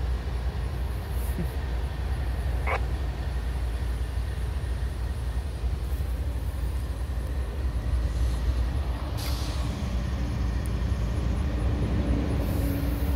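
CSX diesel locomotive idling with a steady low rumble, with a short hiss of air from the brakes about nine seconds in.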